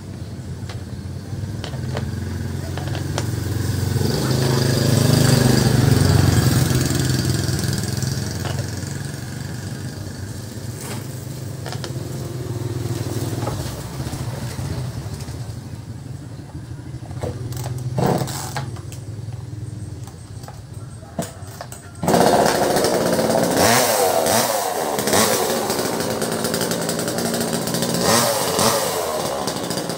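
A motorcycle engine passes by in the first half. About two-thirds through, a small two-stroke chainsaw starts abruptly and runs, revving up and down.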